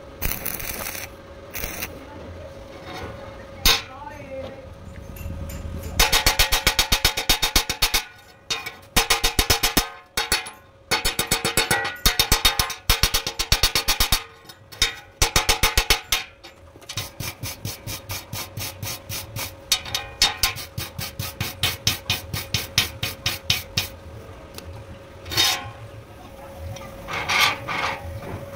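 A brief crackle of the stick-welding arc at the very start, then rapid, regular scraping strokes on the freshly welded steel nut and rod as the slag is cleaned off: loud and fast for about ten seconds, then lighter strokes for several more. A few sharp knocks of metal on metal come in between and near the end.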